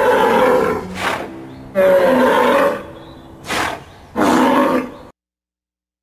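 Animal roar sound effects: three long, loud roars with two short bursts between them, then the sound stops dead about five seconds in.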